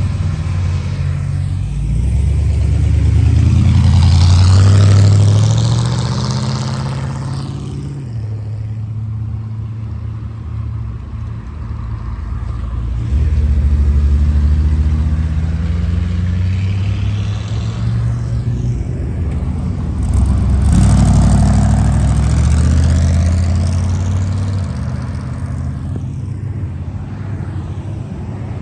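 Several cars driving past one after another, each engine growing louder as it passes and then fading away. The three loudest passes come about four, fourteen and twenty-one seconds in.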